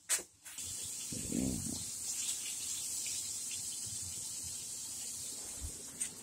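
A click, then a steady hiss that runs on evenly, with a brief low pitched sound about a second in.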